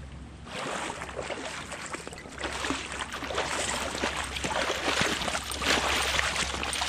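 A hooked pink salmon thrashing and splashing in shallow water at the shoreline as it is reeled in. The splashing grows louder a few seconds in.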